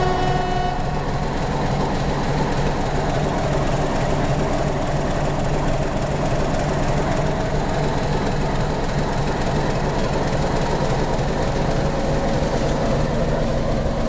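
A YDM-4 metre-gauge diesel locomotive idling, its ALCO 251 diesel engine running with a steady low throb. A short pitched tone sounds briefly at the very start.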